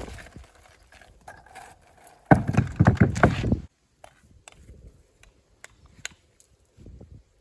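Stones being handled during wall building: a loud, rough scraping clatter about two seconds in that lasts over a second, then scattered light taps and clicks.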